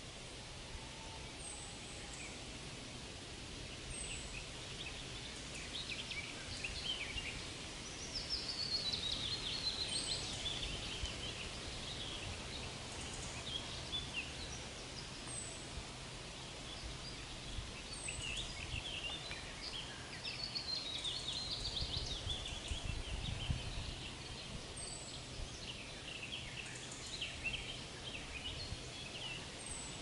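Songbirds singing in a birch forest: a short, thin high note repeated about every two seconds, and longer descending trilled song phrases twice. Underneath runs a steady low background rumble.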